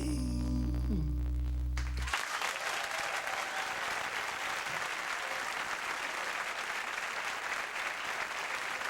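The band's final sustained chord rings, then stops abruptly about two seconds in, and a studio audience applauds steadily.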